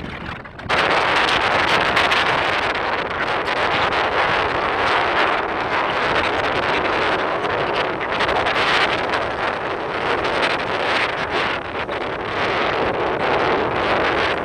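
Wind buffeting the microphone: a loud, gusty rushing noise that starts abruptly under a second in and rises and falls unevenly.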